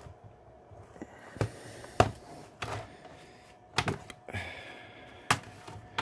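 Sharp plastic clicks and snaps, about six of them at uneven intervals and the loudest about two seconds in, as the clips of an Acer Aspire V3-574 laptop's plastic bottom case let go while it is prised off by hand.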